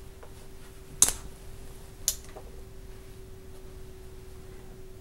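Two small sharp plastic clicks about a second apart as an IV set's spike is handled and pushed into the port of a blood bag, over a faint steady hum.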